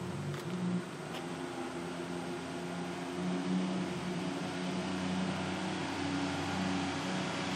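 Porsche 996 GT3's flat-six engine running with its mufflers bypassed: a steady exhaust drone that slowly grows a little louder.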